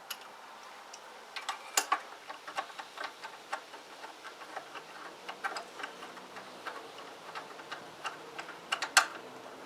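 Light, irregular metallic clicks and taps of a spark plug being refitted by hand with a plug spanner into the Clarke petrol pressure washer's engine after fuel has been poured into the plug hole, with a louder clack about two seconds in and another near the end.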